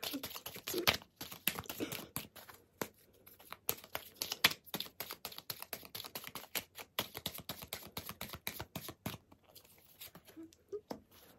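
A deck of oracle cards being shuffled by hand: the cards click and slap against each other in quick, irregular strokes.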